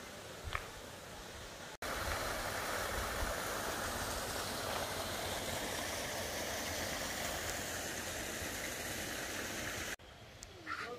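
Steady rush of flowing river water, starting abruptly about two seconds in and cutting off shortly before the end.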